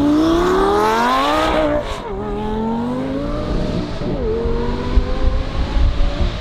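Twin-turbo V10 of a Lamborghini Gallardo Superleggera accelerating hard through the gears. The revs climb, drop at an upshift about two seconds in, climb again, and drop at a second upshift about four seconds in.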